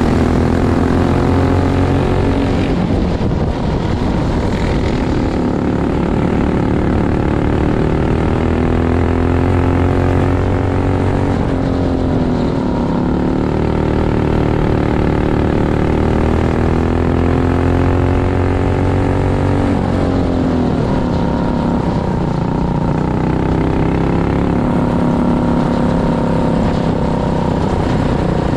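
Racing kart engine heard from onboard at full race speed on a dirt oval. The engine note drops as the kart lifts into each corner and climbs again down each straight, about every eight seconds.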